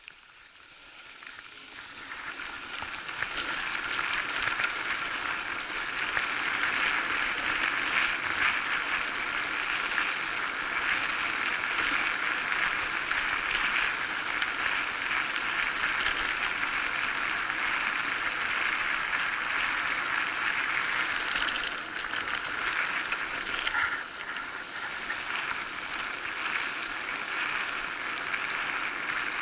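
Electric bike riding fast along a forest dirt track: a steady rush of tyre and wind noise with light clicks and rattles. It grows louder over the first few seconds as the bike speeds up, then holds steady.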